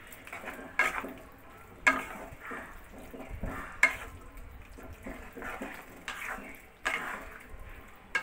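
A spatula stirring chicken and vegetables in a nonstick wok off the heat: continuous soft scraping and shuffling, broken by several sharp knocks against the pan.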